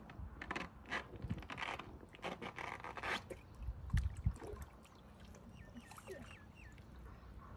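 Water splashing and sloshing, with irregular scrapes and knocks and a few low thumps about four seconds in.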